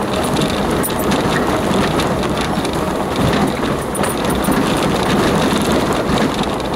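A vehicle driving along a rough, stony grass track, heard from inside the cabin: a steady rumble of engine and tyres with many small knocks and rattles from the uneven ground.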